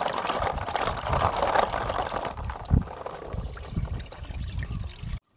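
Water sloshing and splashing in a plastic basin as hands stir and scrub live snails, with scattered dull knocks. The loudest knock comes just before three seconds in.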